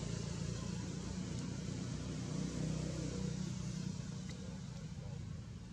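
Steady low engine hum of a motor vehicle in the background, easing off near the end.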